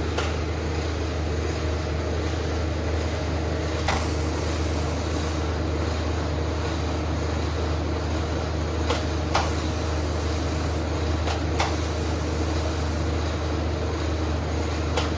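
TIG welder running with a steady hum while stainless filler is welded onto a broken bolt stub to build it up for extraction. The arc is struck several times, each a sharp click, and the first three are followed by a high hiss of a second or two.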